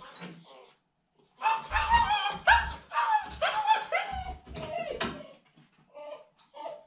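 American Akita puppy barking and yelping in a rapid string of high-pitched calls, with a few fainter, shorter calls near the end, a young puppy protesting at being shut back in her pen.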